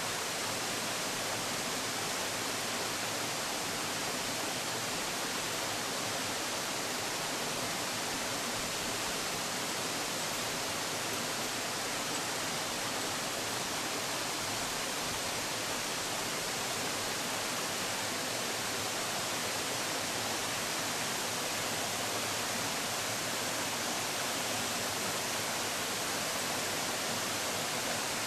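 Water rushing steadily from a tall waterfall and the rocky stream below it: an even, unbroken hiss that does not change.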